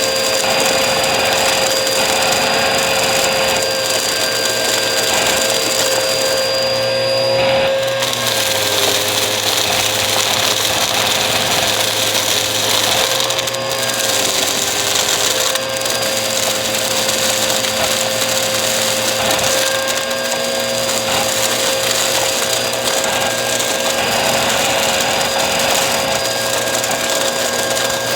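Bissell vacuum cleaner running steadily: a constant motor whine over a loud rush of air, with small changes in the low hum about 8 and 14 seconds in.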